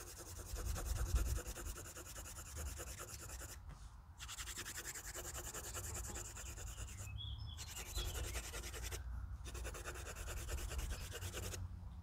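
Blue colored pencil shading on paper: rapid back-and-forth scratching strokes, broken by a few short pauses as the pencil lifts.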